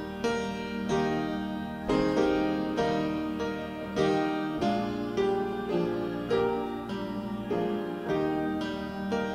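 Slow instrumental piano music, with chords struck roughly once a second and each left to ring.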